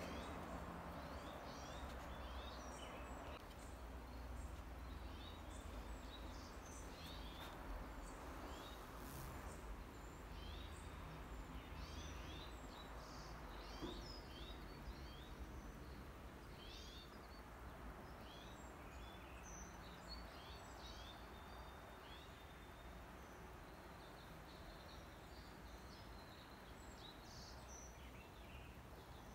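Quiet outdoor ambience: small birds chirping repeatedly in the background over a steady low rumble.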